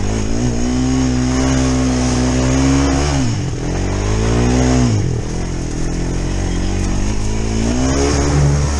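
Honda Recon ATV's single-cylinder engine running under throttle, its note dropping away and picking back up twice midway through, then revving up again near the end as the quad drives into a muddy water hole, throwing spray.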